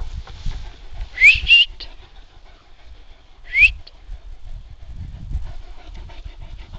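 A person whistling to the dogs: three short rising whistles, two close together about a second in and a third about two seconds later.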